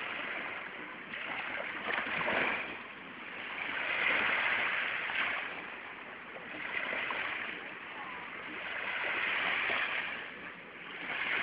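Sea waves washing in and drawing back, a hiss of surf that swells and fades about every two to three seconds.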